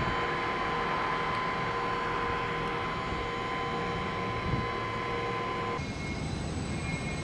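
Künz gantry crane's machinery running while its spreader handles a shipping container: a steady mechanical noise with a steady high tone over it, which changes abruptly about six seconds in to a plainer steady hum.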